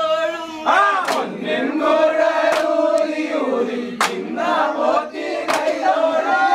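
A group of men's voices raised together in long drawn-out cries and chanting, with a few sharp smacks in between.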